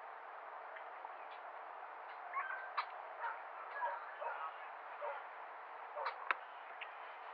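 Steady outdoor hiss with scattered short bird chirps from about two seconds in, and a few sharp clicks.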